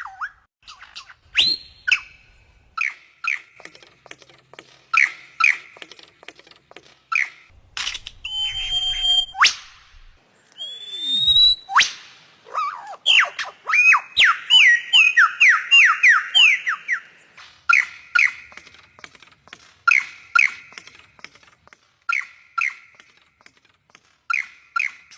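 A bird calling with repeated short, sharp chirps, with a fast run of sliding notes about halfway through.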